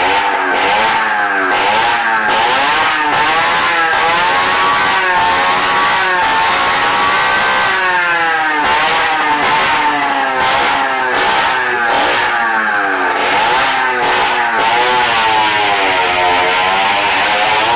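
Motorcycle engine being revved up and down over and over, about once a second, inside a wooden wall-of-death drum.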